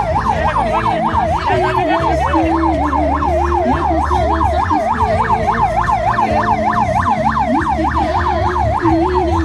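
Electronic siren of a patrol vehicle in fast yelp mode, sweeping rapidly up and down about four to five times a second without a break, over a steady low rumble.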